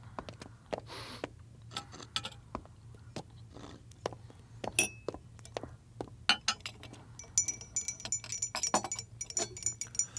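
Tea glasses and dishes clinking: scattered light knocks at first, then a quick run of bright, ringing glassy clinks in the last few seconds.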